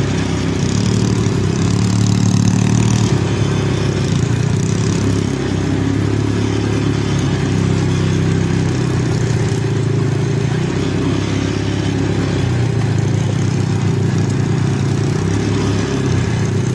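ATV engine running while the quad is ridden along, its pitch rising and falling with the throttle.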